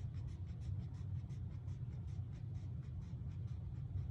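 A quick run of light scratching or rubbing strokes, about six a second, fading near the end, over a steady low hum.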